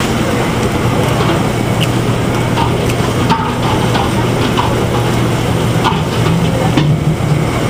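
Commercial kitchen background noise: a steady low machine hum under a constant wash of noise, with scattered light clicks and clatter.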